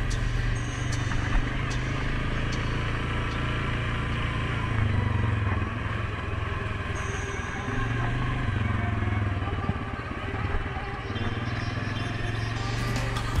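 Suzuki King Quad 750 ATV's single-cylinder engine running while riding, its note rising and falling with the throttle, with a few sharp ticks over it.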